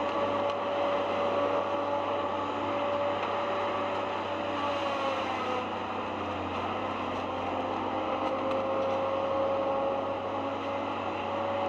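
Heavy forestry machine, likely a tree harvester, with its diesel engine and hydraulics running steadily. A whine sags in pitch about five seconds in and then climbs back as the load changes.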